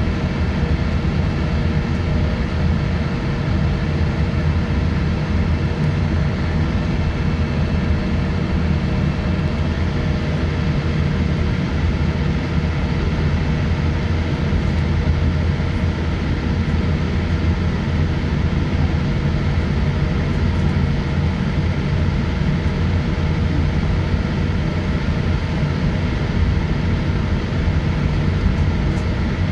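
Steady cabin noise of a Boeing 787-8 airliner taxiing: a low rumble with a constant engine and air-system hum at taxi power, unchanging throughout.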